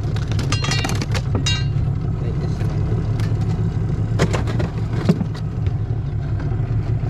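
Boat's outboard motor running steadily at trolling speed as a low hum. A white bass flops on the skiff's deck, giving a few sharp knocks and slaps in the first second or so and again about four and five seconds in.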